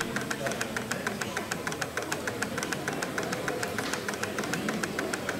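Model portable steam engine running, its flywheel spinning, with a steady rapid ticking beat of about six to seven a second.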